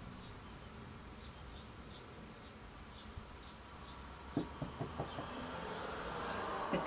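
Faint steady buzzing hum with soft, high chirps repeating two or three times a second. About four seconds in come a handful of light taps as makeup is handled.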